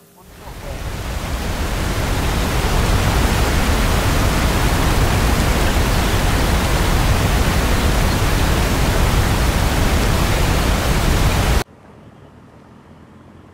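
Steady rush of wind noise on the microphone of a moving motorcycle. It builds up over the first two seconds, holds even, then cuts off suddenly near the end.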